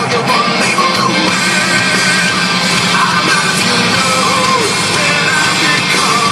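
Rock music with guitar and a singing voice.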